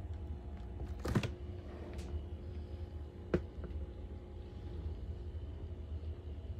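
Small freezer door being handled and pulled open: a cluster of clicks and rustle about a second in, then single sharp clicks near two seconds and around three and a half seconds, over a steady low hum.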